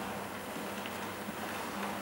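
00 gauge model train running along the layout track: a steady whirr of wheels on the rails with a low motor hum.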